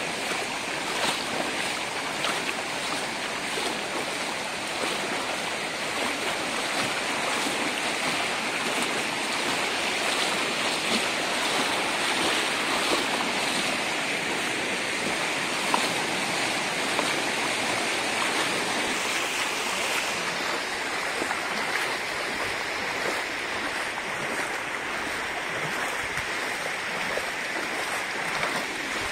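Muddy floodwater rushing across a paved road: a steady rushing wash of water.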